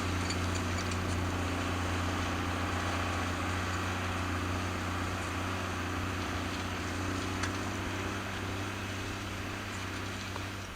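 New Holland TM120 tractor's diesel engine running steadily while pulling a four-furrow reversible plough, its low drone easing slightly near the end.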